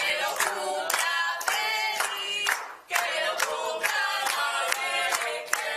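A group of people singing a chant together while clapping in rhythm, about two claps a second.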